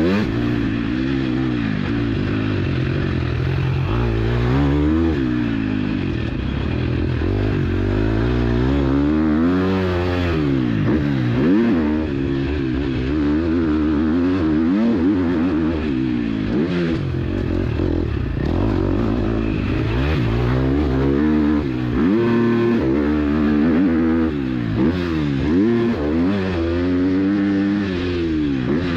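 KTM SX-F 250 four-stroke single-cylinder motocross engine revving hard and easing off again and again, its pitch climbing and dropping every second or two as it is ridden round the track.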